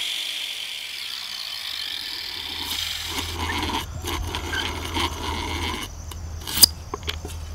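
An angle grinder fading out at the start, then a vintage hand-cranked drill boring into a wooden board: a rough rasping from the gears and bit that comes again with each turn of the crank. A few sharp clicks near the end.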